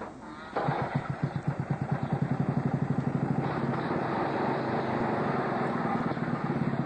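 Small go-kart engine catching about half a second in, then running with a fast, even putter of firing strokes.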